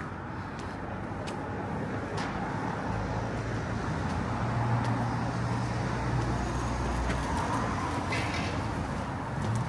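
A motor vehicle driving past on the street. Its low engine hum builds over a few seconds, holds, and eases off near the end, over general street noise.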